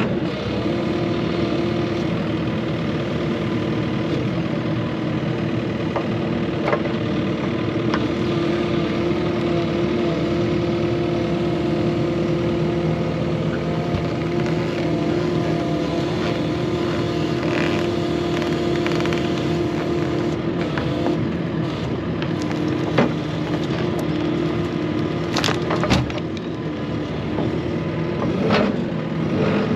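JCB tracked excavator's diesel engine running steadily with a constant whine while its hydraulic log grab lifts and swings a large coast redwood log. Scattered sharp knocks and cracks of wood come as the log is handled, the loudest near the end when it is set down on the ground.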